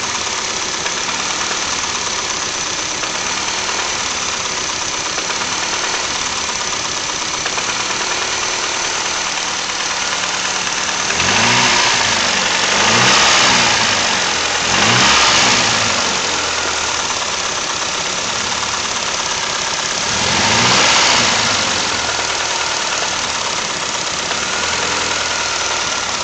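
1994 Mazda Familia's BP 1.8-litre DOHC 16-valve four-cylinder idling, blipped up in revs several times in quick succession about halfway through and once more later. It carries a knock that the owner puts down to a worn rod bearing on cylinder 2.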